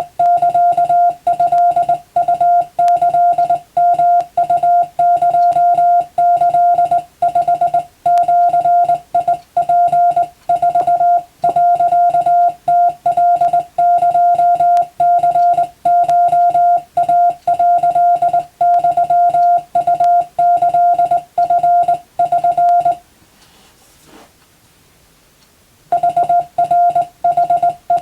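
Morse code tone keyed rapidly in short and long elements, sending Japanese wabun telegram text for radiotelegraph exam practice. It stops for about three seconds a little before the end, then resumes.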